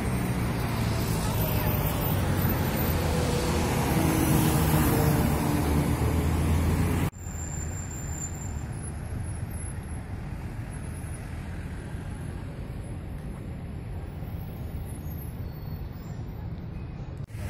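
Road traffic on a city street: cars and buses passing and idling, with a steady engine hum. About seven seconds in it cuts off suddenly to a quieter steady hum of distant traffic.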